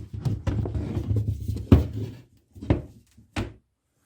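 Bath side panel being handled and pulled away from the bath: about four sharp knocks and thuds over a low rumbling scrape, going quiet shortly before the end.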